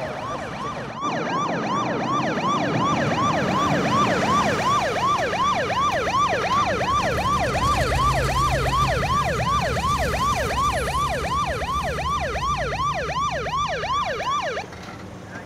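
Police car siren yelping, its pitch rising and falling fast, about three times a second. It cuts off suddenly about a second before the end.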